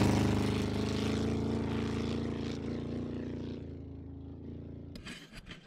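Sand rail (militarized dune buggy) engine receding down a dirt road just after a fast pass-by, its pitch already dropped. It fades steadily over about five seconds, and near the end gives way to a few faint clicks.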